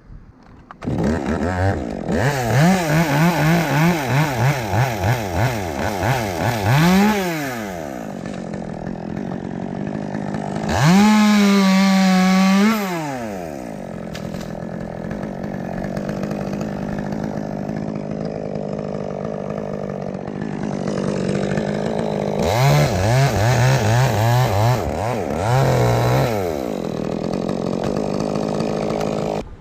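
Two-stroke chainsaw starting up about a second in and cutting dead wood, its engine speed rising and falling as it bogs and picks up under load. It revs high briefly in the middle, runs steadier and lower, then makes a second cut before stopping abruptly near the end.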